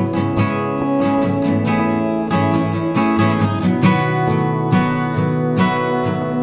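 Background music: strummed and plucked acoustic guitar with a steady beat.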